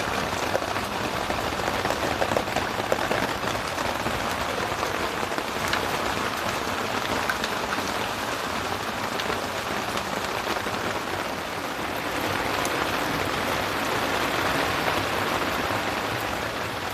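Heavy rain pouring down, a steady hiss of dense drops striking surfaces, swelling a little partway through.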